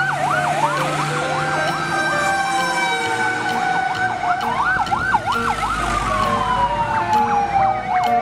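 Fire engine sirens sounding together: one slow wail rising and falling, overlapped by fast yelping up-and-down sweeps.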